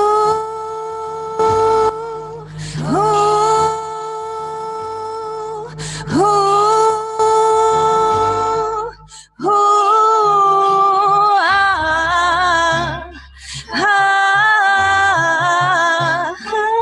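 Unaccompanied wordless singing: a voice holds long notes of a few seconds each, every one sliding up into pitch, then moves into a more changing melodic phrase near the end.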